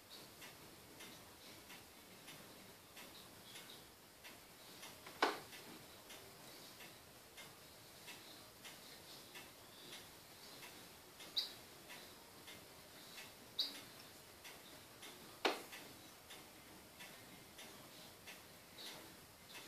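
Stylus ticking and tapping on the plastic surface of an XV-T33F pen tablet: faint irregular clicks, two or three a second, with four louder, sharper clicks scattered through.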